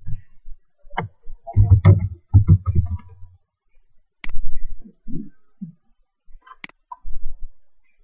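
Keys being tapped on a laptop keyboard in an uneven run, then two sharp clicks about two seconds apart.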